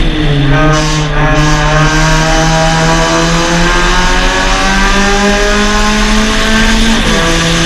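Suzuki Swift Sport's 1.6-litre four-cylinder engine under racing load. The revs dip sharply at the start as the car turns into a corner, climb steadily as it accelerates out, then drop suddenly about seven seconds in with an upshift.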